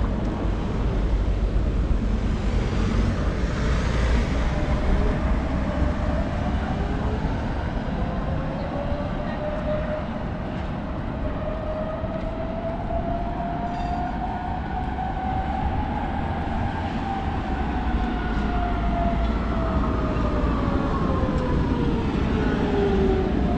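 A rail vehicle, such as a tram or train, passing. Its motor whine climbs slowly in pitch, holds around the middle, then falls away near the end, over a steady low rumble.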